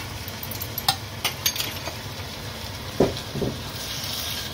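Onion, tomato and spice curry base sizzling in a non-stick frying pan as it is stirred with a plastic spatula. A few light utensil clicks come in the first second and a half, and the spatula knocks against the pan twice about three seconds in.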